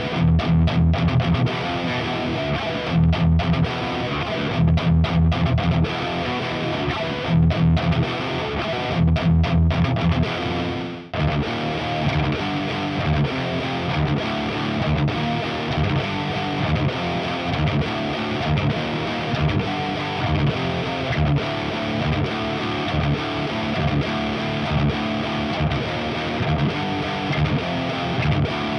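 Jackson JS32 Dinky electric guitar with EMG 81/85 active pickups, played through a Diezel VH4 head and a Marshall 4x12 cab, riffing with high-gain distortion. For the first ten seconds or so it plays heavy palm-muted chugs in short groups; after a brief break it goes into continuous distorted playing.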